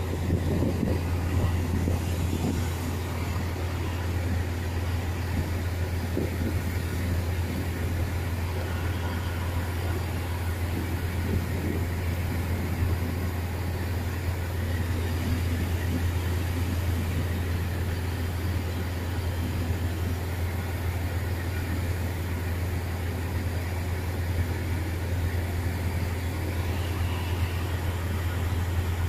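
Chiltern Railways diesel multiple unit idling at the platform: a steady low engine hum, with a little extra rumble in the first couple of seconds.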